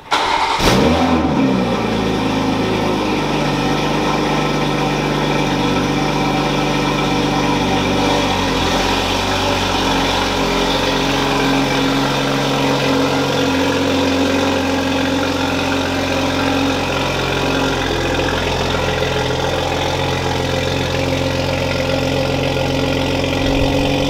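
2020 Toyota Supra's turbocharged 3.0-litre inline-six, fitted with an aftermarket downpipe and tune, cold-starting: it catches with a brief rev flare that falls away within a second or two, then settles into a steady idle.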